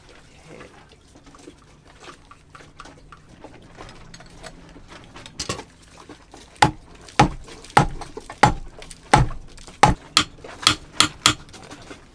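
Rubber mallet striking a wooden beam of a homemade puller rig, about ten sharp blows starting about halfway through and coming faster toward the end, after faint clicking and handling. The blows are meant to shock loose an engine part held under the tightened puller.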